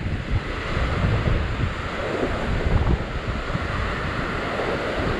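Ocean surf washing and foaming against the rock ledge below, swelling and easing, with wind buffeting the microphone.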